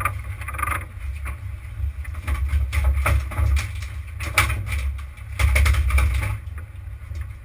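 Low, gusting rumble of a sportfishing boat at sea, its engine mixed with wind buffeting the microphone, broken by several sharp knocks.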